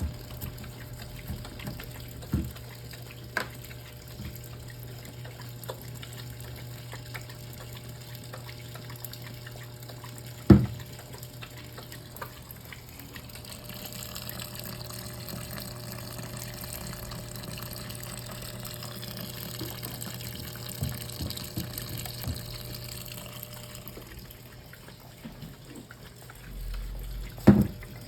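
Brastemp Clean washing machine mid-wash: water running and sloshing in the tub over a steady low motor hum, with a few sharp knocks, the loudest about ten seconds in and another near the end. The water noise swells for several seconds in the middle.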